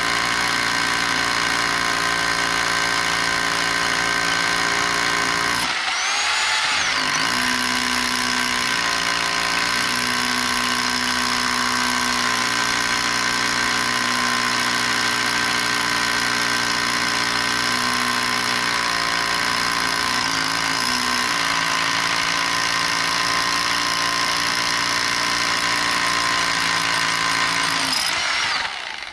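Rotary hammer drilling into a concrete walkway slab, running steadily. Its pitch dips and picks up again about six seconds in, and it stops shortly before the end.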